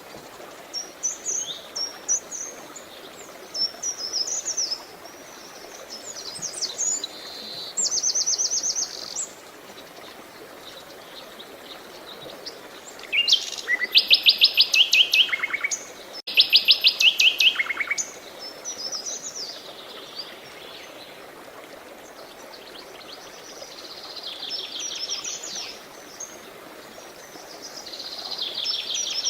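Songbirds singing in short chirped phrases and fast trills, loudest in two long rapid trills around the middle, over a steady hiss of running water.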